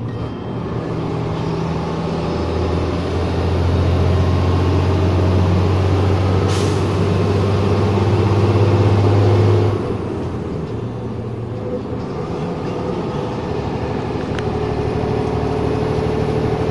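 HOWO truck's diesel engine heard from inside the cab, pulling under load with a steady drone that builds over the first few seconds, then drops off sharply about ten seconds in at a gear change before settling again. A short hiss of air comes partway through.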